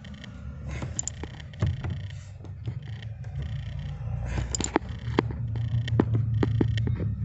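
13 mm wrench tightening a loose steering-column bolt: scattered sharp metallic clicks and knocks over a low steady hum. The loose column bolt is what caused the heavy knock in the steering wheel.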